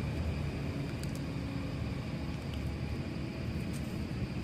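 Steady low outdoor rumble, with a few faint ticks about a second in and near the end.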